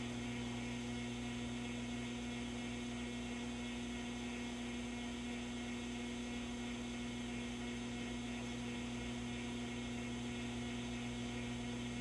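Steady electrical hum from a running vacuum-tube television set, a low buzzing drone with several steady pitched tones over a faint hiss.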